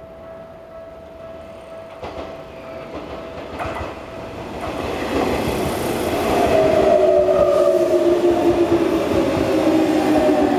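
Japanese level-crossing alarm ringing, then a Tokyu Oimachi Line train running over the crossing. The train grows loud from about five seconds in, with a strong whine that slowly falls in pitch.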